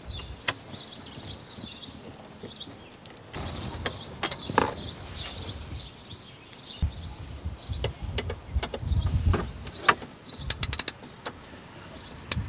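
Hand ratchet and socket working the screw and bolt on a metal retaining brace: scattered clicks and knocks of the tool against the fasteners, with a quick run of ratchet clicks about ten seconds in.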